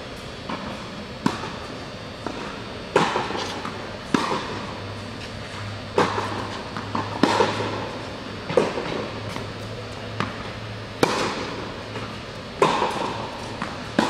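Tennis rally: a tennis ball struck by rackets and bouncing on a hard court, a sharp pop about every second and a half, echoing in a large indoor tennis hall.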